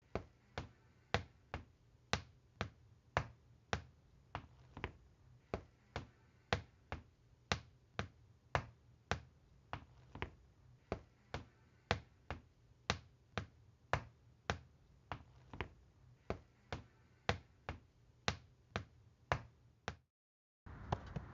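Sharp taps repeating at a steady pace, about two a second, for about twenty seconds, then cutting off abruptly near the end.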